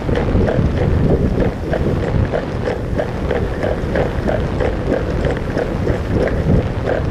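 Wind buffeting the microphone: a loud, steady rumble with rapid short crackles through it.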